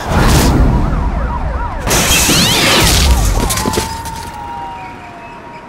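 Sound effects for an animated fall and crash: a loud hit at the start and a bigger crash about two seconds in, over wavering siren-like wails. Then a single tone slides slowly down in pitch as everything fades.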